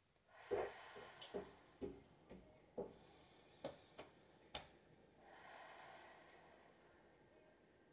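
Faint sounds in a quiet room: a short breathy noise, then a run of soft clicks and taps over the next few seconds, then a long, soft exhale.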